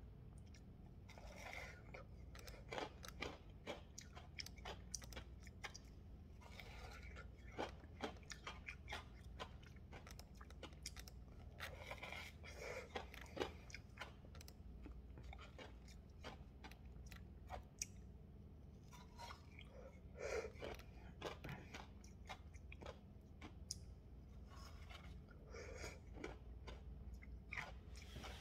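Chewing and crunching frozen slush ice squeezed from a tube ice pop: quiet, irregular small crunches and crackles, a few a second.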